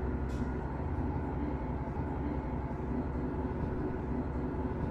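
Cabin running sound of a Sanriku Railway 36-700 series diesel railcar under way: a steady engine drone and wheel-on-rail noise, with one brief click about a third of a second in.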